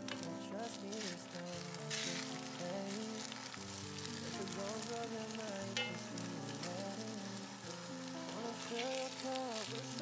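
Slice of pork jowl sizzling as it fries in a frying pan, under background music.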